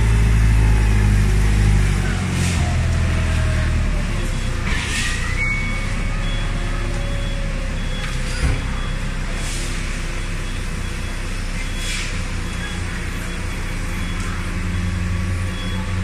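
Forklift engine running steadily as it lifts and carries a heavy bale, heavier for the first two seconds and then settling lower. Faint short beeps recur now and then from about six seconds in, with a few brief bursts of noise.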